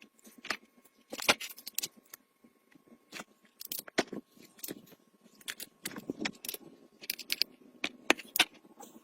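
Irregular sharp clinks and clicks of small metal objects being handled, two or three a second, with a faint steady hum behind them.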